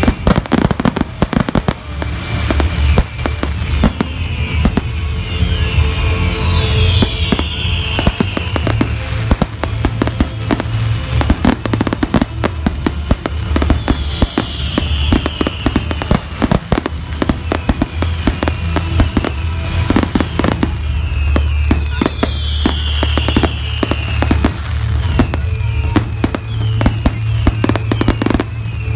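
Fireworks display: a rapid, unbroken barrage of bangs and crackling bursts from aerial shells.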